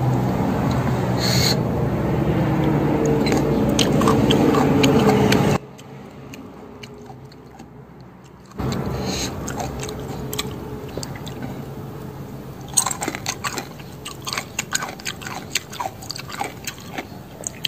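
Close-up chewing of crunchy pounded morning-glory salad with peanuts: many small sharp crunches and mouth clicks through the second half. The first five and a half seconds hold a low steady hum that cuts off suddenly, followed by a quieter stretch of about three seconds.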